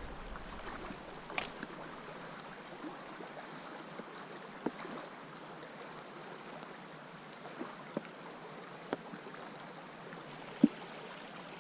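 Small creek flowing, a steady even water rush, with a few sharp clicks scattered through it, the loudest near the end.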